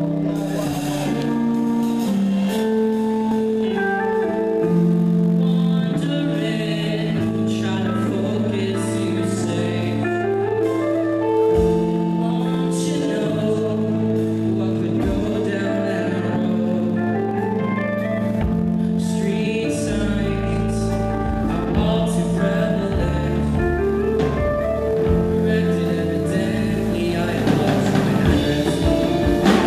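Live psychedelic rock band playing: electric guitar and drums, with a low bass line coming in about seven seconds in.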